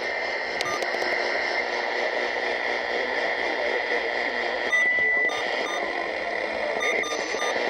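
Radio static: a steady hiss with a constant high tone running through it and a few short beeps.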